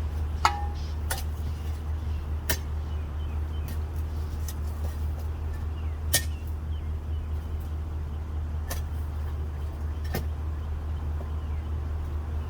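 A vehicle engine running with a steady low hum, with sharp knocks every few seconds, one of them ringing briefly like metal.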